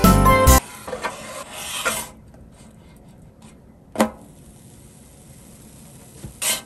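Spatula scraping under a pancake on a griddle, swelling over a second or so, then a single sharp slap about four seconds in as the flipped pancake lands back on the griddle. A short swish near the end.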